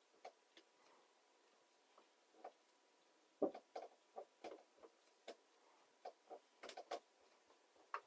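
Faint, irregular small clicks and taps of a fine paintbrush and fingers working on an acrylic nail tip, sparse at first and coming thick and fast from about three and a half seconds in.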